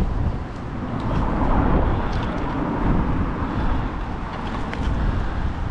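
Wind buffeting the microphone, a deep rumbling that swells and eases in gusts, with a few faint ticks.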